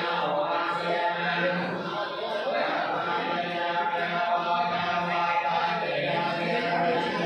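A group of voices chanting in unison on a steady low pitch, Buddhist chanting for the funeral of a monk, the held drone pausing briefly about once a second.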